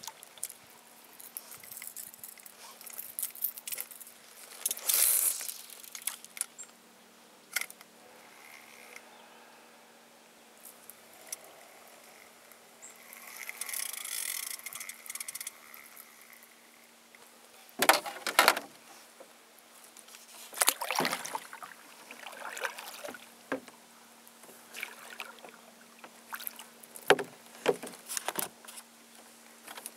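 Scattered knocks, clicks and rattles of fishing gear being handled in a small boat, with a few seconds of steady whirring about halfway through.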